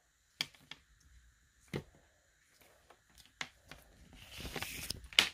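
Clear plastic packaging being handled: scattered crinkles and taps, a rustle about four seconds in, and a sharp crackle near the end.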